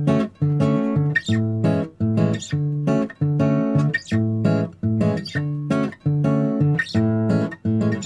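Background music: a strummed acoustic guitar playing a steady, repeating chord rhythm.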